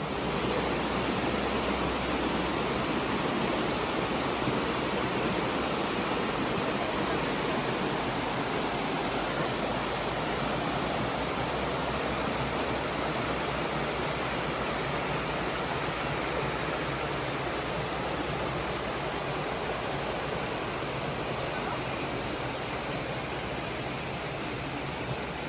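Steady rushing of water falling in a waterfall.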